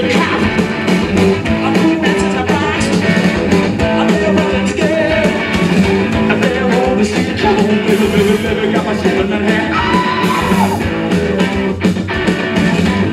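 Live rock band playing loud: electric guitar and a steady drum beat, with a singer on the microphone.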